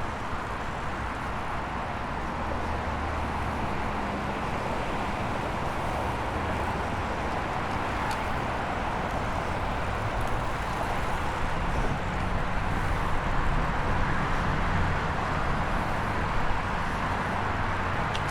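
Steady road traffic noise, with the low rumble of passing vehicles coming and going and growing a little louder in the second half.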